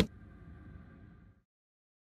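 The end of an outro sound effect: one sharp click right at the start, then a faint ringing tail that dies away about a second and a half in.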